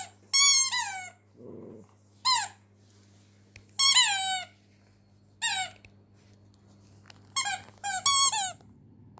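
Rubber squeak toy being chewed and squeezed by a Pomeranian, giving a string of short squeaks that each fall in pitch, coming irregularly a second or two apart, with a quick double squeak near the end.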